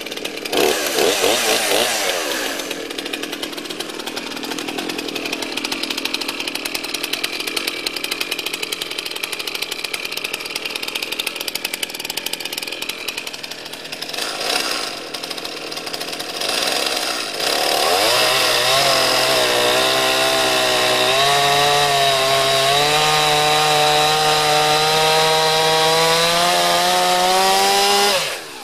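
Two-stroke chainsaw at full throttle, bucking a Douglas fir log in half. After a few revs at the start it cuts steadily; over the last ten seconds the engine note climbs slowly, then drops off sharply near the end.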